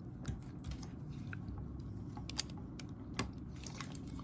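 Irregular light plastic clicks and taps from the parts of an MPM Ratchet toy figure being handled and moved, with a sharper click about a quarter second in, another near two and a half seconds, and one a little past three seconds; a low steady hum underneath.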